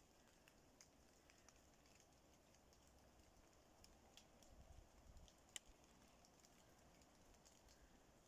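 Faint, irregular ticking of raindrops falling on oak leaves, with one sharper tick about five and a half seconds in and a brief low rumble just before it.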